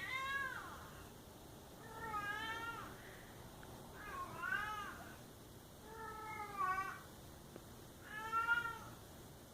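Domestic cat meowing over and over: five drawn-out meows about two seconds apart, each rising and then falling in pitch.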